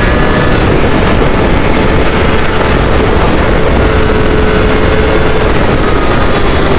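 Honda 600 cc inline-four sportbike engine running at high revs while under way, holding a steady high pitch that eases slightly lower near the end, over heavy wind rush.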